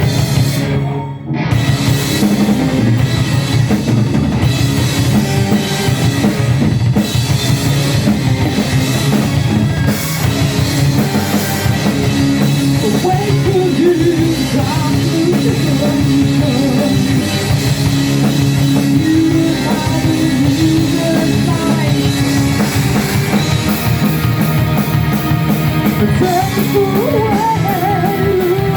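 Heavy metal band playing live: distorted electric guitars, bass and drum kit. The whole band stops for a moment about a second in, then comes straight back in.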